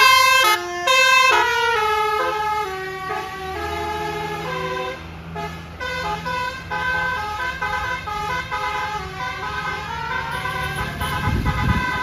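A tour bus's basuri telolet horn playing a melody: a long run of multi-tone horn notes that change pitch about twice a second, loudest at the start. The bus engine runs low underneath.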